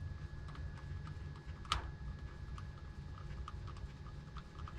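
Light clicks and taps of small plastic parts being handled, with one sharper click about 1.7 seconds in, over a low steady hum.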